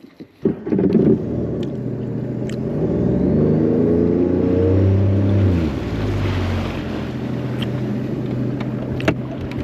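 Jet ski engine starting about half a second in, revving up and back down, then idling steadily.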